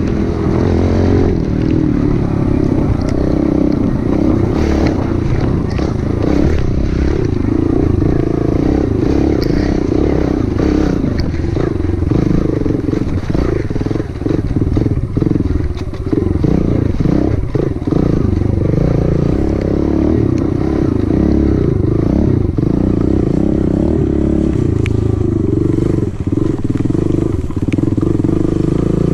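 Dirt bike engine running as it is ridden over a rough grassy trail, its pitch rising and falling with the throttle, with some clatter from the bike over the bumps.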